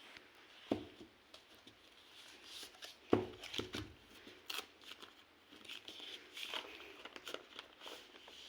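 Packaging of a tablet being handled during unboxing: scattered light taps, clicks and crinkling, with a sharper knock just under a second in and a louder one about three seconds in.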